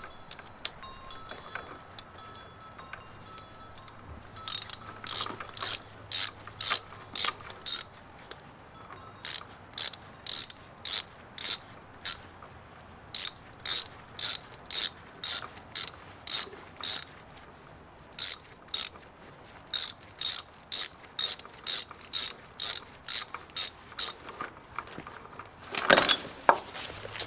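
Ratchet wrench clicking in short bursts, about two to three a second, in several runs with pauses between them. A louder clatter comes near the end.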